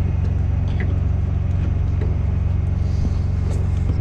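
Truck engine idling steadily, a low drone, with a few faint clicks and taps of parts being handled.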